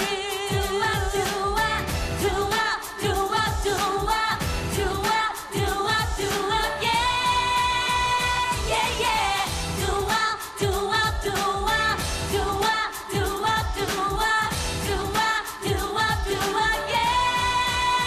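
Female vocalists singing an upbeat K-pop song over a full backing track, with a repeated 'ttu-ap ttu-ap ttu-ap' vocal hook.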